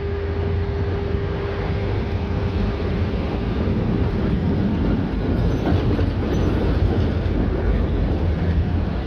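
Konstal 105N2K tram running on rails, with a steady rumble and rolling noise. A steady whine fades out in the first second or two.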